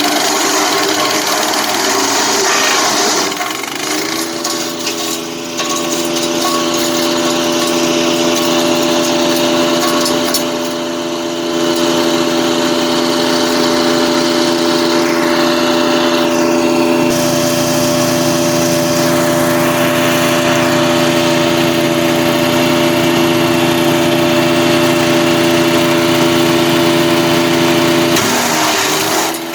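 Gas-engine wood chipper running loud and steady at working speed, a steady engine drone with noisier chipping in the first few seconds.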